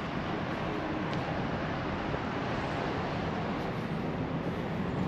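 A vehicle engine running steadily, a low hum under an even rumble.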